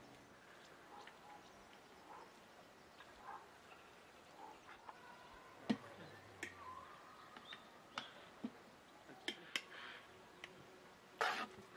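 Metal spoon clinking and scraping against a metal pot and a glass jar as thick carrot jam is spooned into the jar: a handful of scattered sharp clicks, the loudest near the end.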